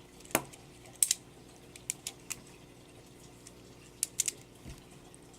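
Plastic handles of a LEGO butterfly knife clicking and clacking as it is flipped: a scatter of sharp clicks, some in quick pairs and a triple.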